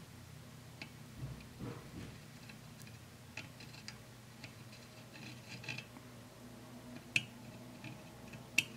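Faint scattered ticks and light clicks as a soldering iron tip and a wire of Chip Quik low-melt removal alloy are worked against the pins of a surface-mount chip, with two sharper clicks near the end, over a low steady hum.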